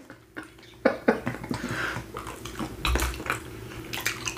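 Close-up mouth sounds of people eating chocolate-coated ice cream bars: a run of short wet smacks and clicks from biting and chewing. A dull low thump comes about three seconds in.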